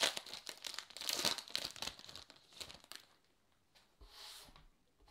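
Baseball card pack wrapper crinkling and tearing as it is pulled open and the cards are freed. The rustling stops about three seconds in, with one more brief rustle about a second later.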